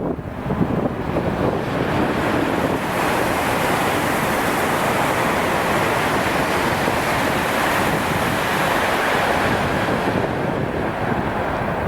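High-speed train passing at speed: an even rush of wheel and air noise that swells over the first few seconds, holds, and fades near the end.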